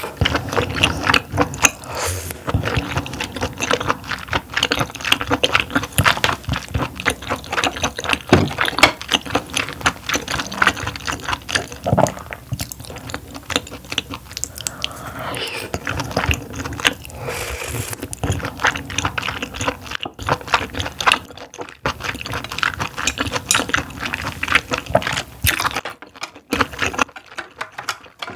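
Close-miked chewing of steamed scallop dipped in fresh cream: a steady run of small, dense mouth clicks, with a few short pauses near the end.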